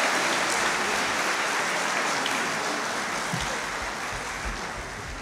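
Audience applauding, slowly dying away, with a few soft low thumps in the second half.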